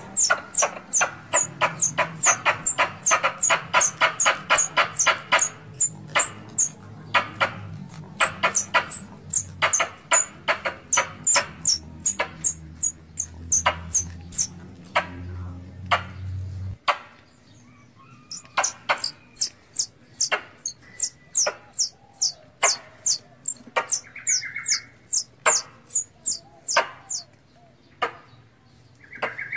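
Tree squirrels in heat giving a long run of sharp repeated chattering calls, each with a high falling squeak. The calls come fast, about five a second, for the first several seconds, then slow to about two a second. A low background hum cuts off suddenly about two-thirds of the way through.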